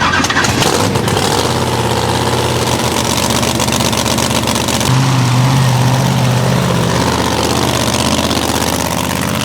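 Mega truck's engine running loud, its revs rising about halfway through, then easing back.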